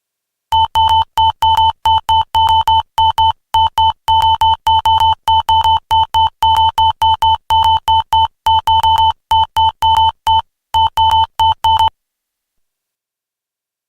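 Synthesized sci-fi user-interface typing sound effect: a fast, irregular run of short electronic beeps, roughly four a second, like keystrokes on a futuristic computer. It stops about two seconds before the end.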